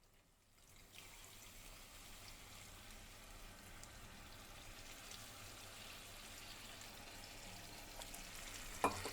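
Tamarind extract being poured into a pan of cooked brinjal pieces: a faint, steady liquid pour that starts about a second in and slowly grows louder. A single short, sharp knock comes near the end.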